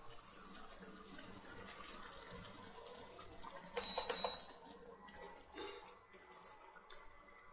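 Induction cooktop gives a short, high electronic beep with a few clicks about four seconds in, as its control button is pressed to turn the power down. Around it, curry gravy simmers faintly in a steel pan, with soft ticks and plops as koftas are set into it.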